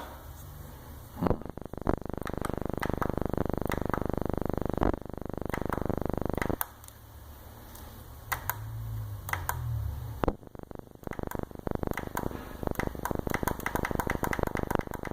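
Honda Accord four-cylinder engine cranked over on the starter for about five seconds without starting, the fuel pump disabled for an in-cylinder compression capture. It is followed by a quieter pause and then a run of irregular sharp clicks.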